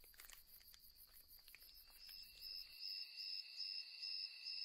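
Crickets trilling, a steady pulsing high chirp that fades in about halfway and grows louder. A few faint ticks come before it.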